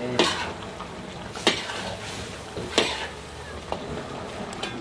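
Chicken, potatoes and carrots bubbling and sizzling in sauce in a pan, stirred with a utensil that scrapes and knocks against the pan three times, about once every second and a half.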